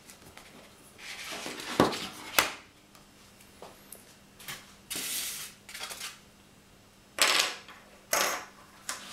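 Handling noises as a metal mounting plate and a plastic alarm unit and sensor are moved about on a table among polystyrene packing: two sharp knocks about two seconds in, then short scrapes and rubs that come and go.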